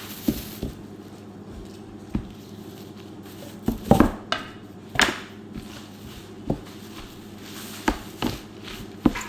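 Kitchen prep: irregular knocks and clicks of utensils, dishes and a knife on a board as salad ingredients are handled, about a dozen sharp taps with the loudest near the middle, over a steady low hum.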